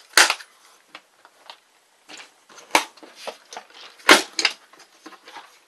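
Green plastic ammo cans being handled: a lid snapped shut on a can of cartridges, then the cans knocking against each other and the tote as they are lifted and set down, a string of sharp plastic clacks and taps, the loudest about four seconds in.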